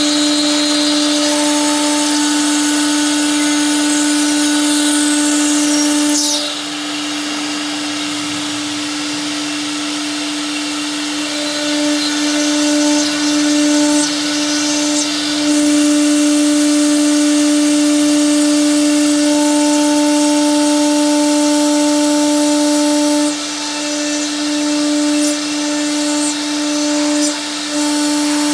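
Stone CNC bridge saw running, its motor giving a steady hum under a hissing grind. The overall level drops and recovers a few times as it works.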